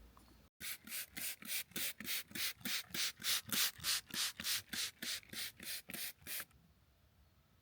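Hand pruning saw cutting through a hazelnut branch in even back-and-forth strokes, about three a second. It starts abruptly about half a second in and stops suddenly near the end.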